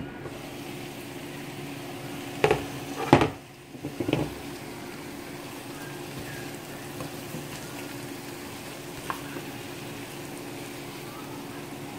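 Chicken wings sizzling in sauce in a frying pan as they are stirred with a plastic spatula, over a steady hum. A few loud clatters come between two and four seconds in as the glass pan lid is lifted off and set down.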